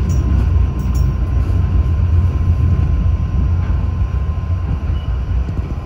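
New York City Subway B train rumbling along the tracks, heard from inside the car as it runs into a station. The deep rumble eases off near the end as the train slows to a stop.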